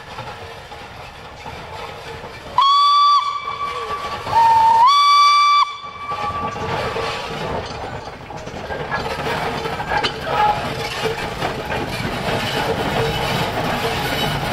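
LNER K4 class 2-6-0 steam locomotive 61994 The Great Marquess sounding its whistle twice, a short blast then a longer one that starts slightly lower and steps up in pitch. The locomotive then runs past working steam, its exhaust and wheels on the rails growing gradually louder.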